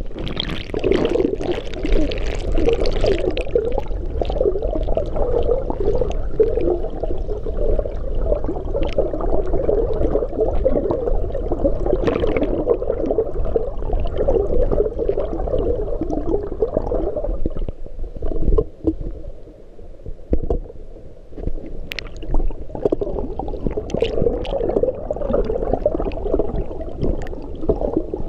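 Muffled underwater rush of water stirred by a swimmer's arm strokes and kicks, heard from below the surface. It eases off for a few seconds about two thirds of the way through, with a few sharp clicks.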